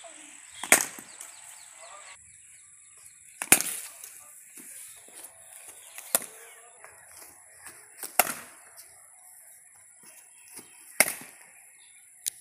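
Cricket bat striking the ball in net practice: five sharp wooden cracks, one every two to three seconds.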